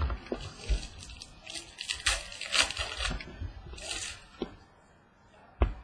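Trading card pack being opened and its cards handled: crinkling and tearing of a foil wrapper, rustling and taps of cards, then a single knock near the end.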